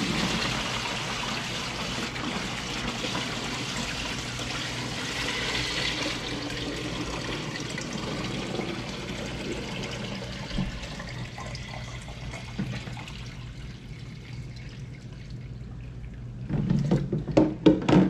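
Water poured from a tilted plastic five-gallon bucket into another plastic bucket, a steady splashing pour that thins out in the last few seconds. A few knocks near the end.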